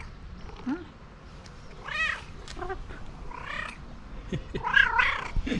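Domestic cat meowing, three high arching meows spaced a second or so apart, the last and loudest near the end.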